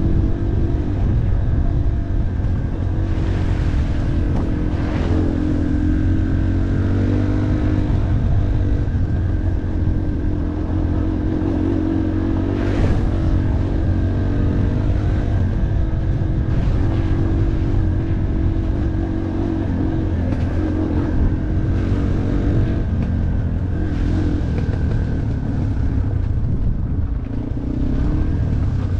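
Yamaha off-road motorcycle engine running under way, its pitch rising and falling with the throttle, over a steady low rumble. A few sharp knocks and clatters come through, around the start and at about 13 seconds.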